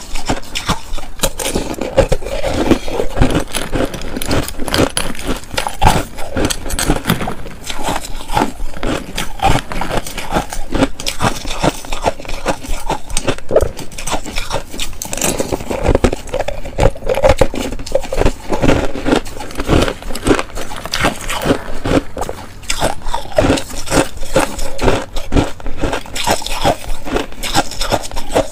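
Close-up crunching of shaved ice: a metal spoon scraping and scooping through a bowl of shaved ice and ice cubes, and mouthfuls of ice being bitten and chewed, a dense run of crackly clicks.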